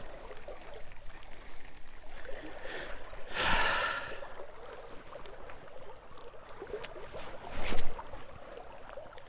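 Steady rain pattering on the water and the boat, with a loud breathy exhale about three and a half seconds in and a sharp knock near the end.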